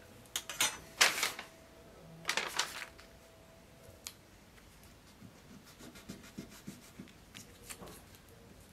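Hands handling metal scabbard fittings on a fur-covered bench. A few brief scraping rustles come in the first three seconds, the loudest about a second in, followed by light clicks and taps as the parts are fitted together.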